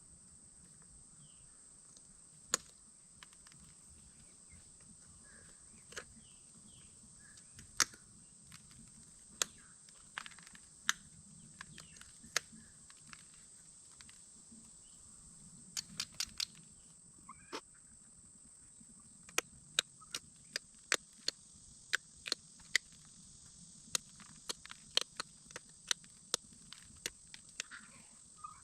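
Glass being pressure-flaked with a hand flaker: sharp, irregular clicks as small flakes pop off the edge, coming in quicker runs in the second half. Insects trill steadily underneath.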